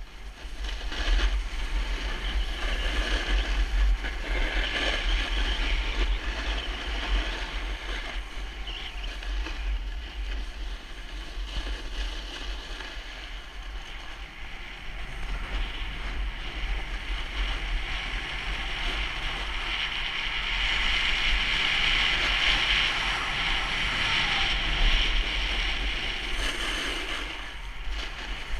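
Skis or snowboard edges scraping and hissing over hard-packed snow during a descent, with wind buffeting the helmet-mounted action camera's microphone as a steady low rumble. The scraping grows louder for several seconds near the end, as on a faster or harder-carved stretch.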